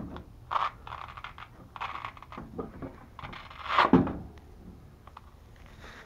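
A phone being pressed and worked onto a Velcro patch on a bicycle frame: a run of short scratchy rustles and scrapes, with a louder rasp about four seconds in.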